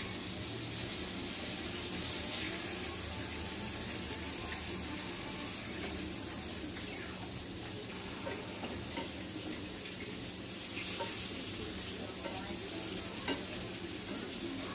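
Food sizzling in a frying pan over a gas burner while a fork stirs and scrapes it, with a few light taps of the utensil on the pan, the sharpest near the end.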